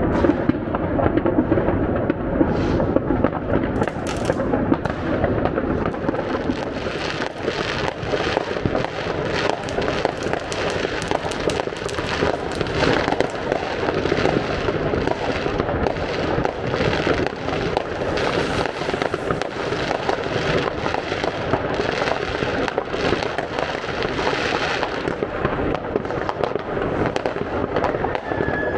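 Many fireworks and firecrackers going off at once: a continuous, dense barrage of overlapping bangs and crackles with no break.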